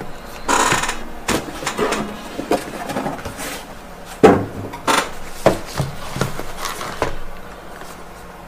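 Cardboard packaging and small filter boxes being handled: rustling and scraping of cardboard, then a run of sharp knocks as the boxes are knocked and set down on the desk, the loudest about four seconds in.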